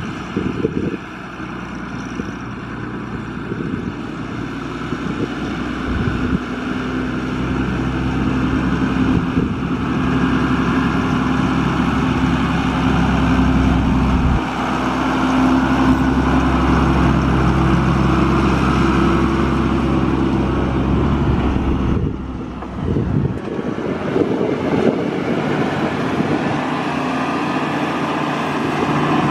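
White 6145 tractor's six-cylinder turbo diesel engine running, loud and steady. Its note and level change about halfway through and again a few seconds before the end.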